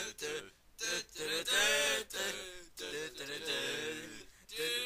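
A man's voice singing in short phrases with brief breaks between them.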